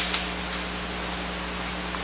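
Steady hiss with a low electrical hum underneath, the recording's background noise, with one short light click just after the start.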